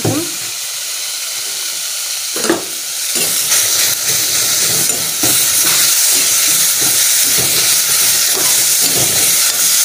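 Tomatoes, mushrooms and potatoes sizzling in hot oil in a metal karahi while a metal spoon stirs and scrapes against the pan. There is a sharper clank of the spoon about two and a half seconds in, and the sizzling grows louder from about five seconds in.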